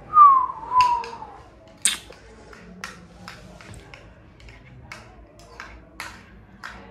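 A puppy gives one short whine that falls in pitch near the start, then a spoon clinks and taps irregularly against a bowl as her Cerelac is stirred into warm water, with one sharper clink about two seconds in.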